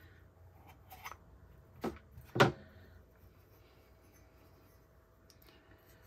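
Objects being handled and set down on a tabletop: a few short knocks, the loudest about two and a half seconds in, then quiet with a faint steady hum.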